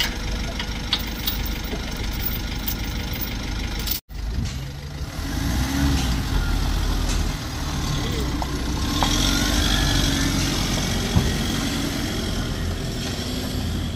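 Heavy truck engines running, with people's voices in the background. The sound breaks off for an instant about four seconds in.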